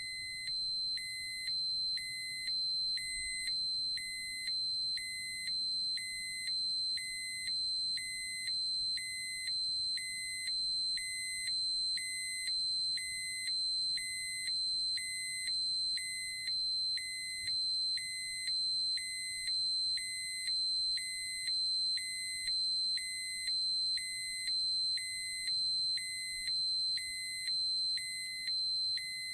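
Electronic radiation dosimeter alarm: a continuous high-pitched tone with a lower beep pulsing on and off about three times every two seconds. This is the warning that the dose or dose-rate threshold has been exceeded.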